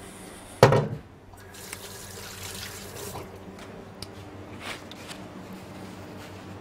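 A sharp knock just over half a second in, then the soft, wet scraping of a palette knife spreading buttercream across a sponge in a steel cake frame, with a few light clicks, over a steady kitchen hum.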